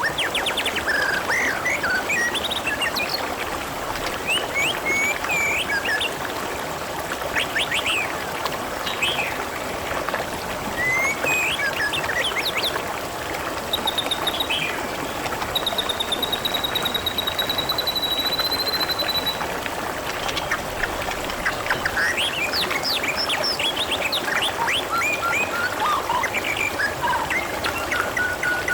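Water trickling and flowing steadily, with small birds chirping and calling over it; a long, rapid trill rises slightly about halfway through, and another trill sets in near the end.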